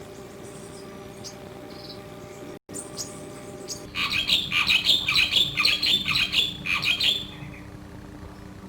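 Javan myna singing: starting about halfway in, a dense run of rapid, fast-changing notes lasting about three seconds, over a steady low hum.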